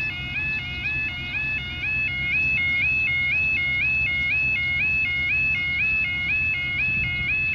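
Railway level crossing warning alarm sounding a rapid, steady two-tone warble, repeating two or three times a second, while the barriers are down: the warning that a train is approaching. It gets a little louder about two seconds in.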